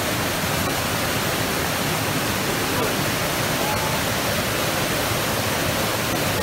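Steady, even rushing noise that holds the same loudness throughout.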